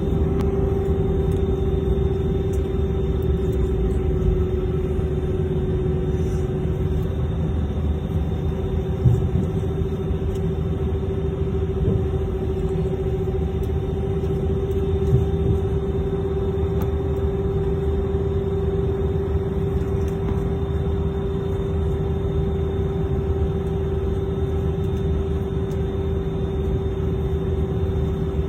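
Airbus A319 jet engines running steadily at low power: a constant low rumble with a steady hum-like tone that neither builds nor fades, and a couple of faint bumps along the way.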